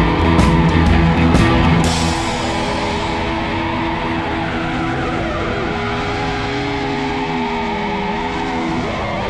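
Rock music with electric guitar and drums. The drums stop about two seconds in, and held tones carry on.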